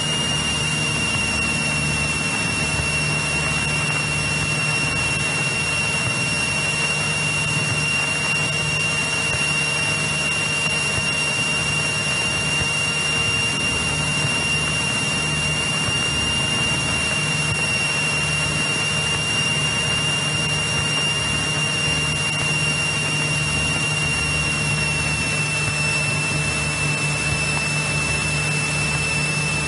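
Cessna 172E Skyhawk's six-cylinder Continental engine and propeller droning steadily in flight. A thin, steady high whine runs over the drone and drops slightly in pitch about 25 seconds in.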